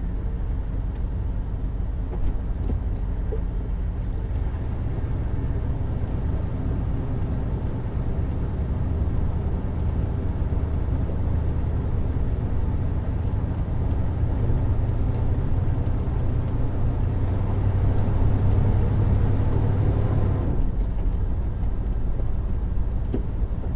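Class A motorhome driving: a steady low engine and road rumble that builds through the middle and eases off a few seconds before the end.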